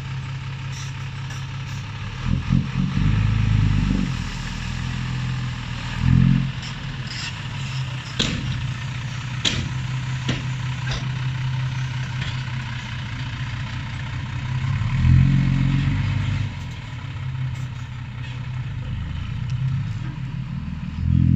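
Hino dump truck's diesel engine idling and revving up several times as the tipper body is lowered, with a few sharp metallic clanks about eight to eleven seconds in. The truck then pulls away.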